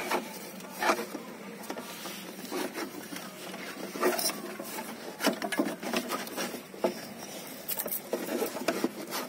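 Scattered light knocks, clicks and rubbing as a ribbed rubber fan belt is worked by hand over the engine pulleys of a JCB 3DX backhoe loader.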